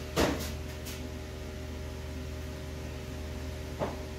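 Steady electrical hum of kitchen equipment, with a sharp knock against the steel pizza tray just after the start, a few lighter taps after it, and a smaller knock near the end.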